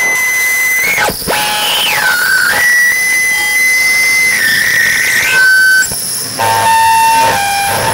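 Live electronic noise music: whistling electronic tones that swoop up and down in pitch, then hold steady, with sudden cut-outs and a harsher noisy stretch. Near the end it drops to a lower, buzzing held tone.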